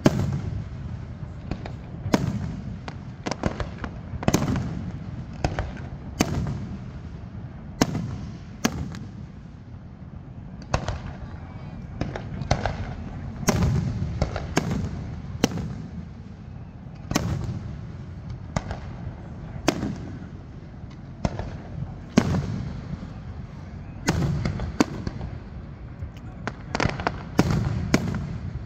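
Fireworks display: sharp bangs about every second or two, with a quicker run of bangs near the end, over a continuous low rumble.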